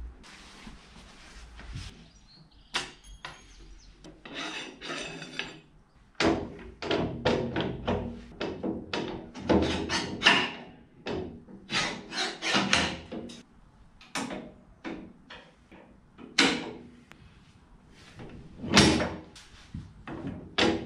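A long string of short knocks, clacks and scrapes from parts of a EuroLifter 3500U scissor lift being handled: first a tool at a fitting by the lift cylinder, then the drive-on ramp being worked onto the end of the platform. The knocks come thick and fast in the middle, with the loudest one near the end.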